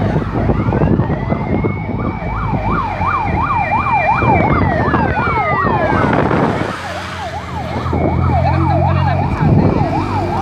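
Emergency-vehicle sirens sounding together: one runs a fast yelp, going up and down about two or three times a second, while another wails, rising, holding high and falling away about halfway through, over a low steady hum.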